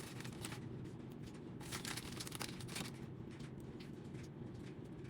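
Light clicks, taps and rustles of hands at work, with a noisier rustling stretch around the middle: pieces of strawberry and grape being pushed onto skewers.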